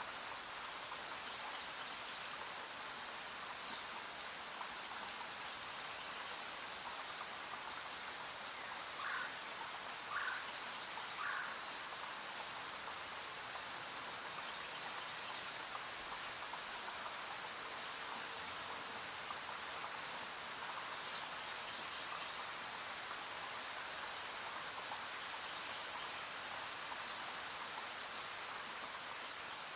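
Steady, even rain-like hiss, with a few short chirps over it, three of them in quick succession about ten seconds in.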